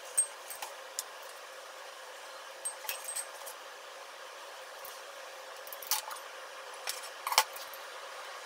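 Light clicks and taps of wooden chopsticks against each other and the food and box as slices and shiso leaves are placed, scattered and irregular over a faint steady hiss; the sharpest click comes near the end.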